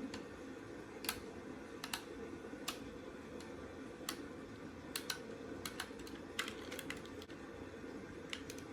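Irregular light clicks and taps from the hard plastic parts of a Buzz Lightyear action figure being handled and worked on, over a steady low hum.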